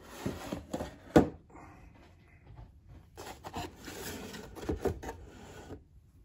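Cardboard packaging being handled and slid apart: rustling and scraping cardboard with a sharp knock about a second in, then a longer stretch of cardboard rubbing as the box is lifted off.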